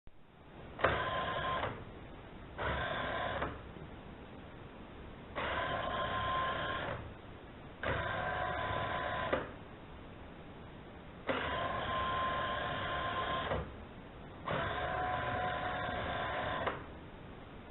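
A robot vacuum cleaner's small electric motors whirring in six short stop-start bursts of one to two seconds each, over a quieter steady hum. The whine's pitch differs from one burst to the next.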